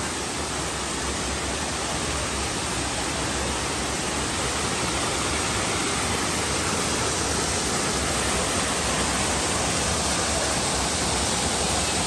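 Steady rush of a mountain waterfall cascading over boulders, growing gradually louder near the end.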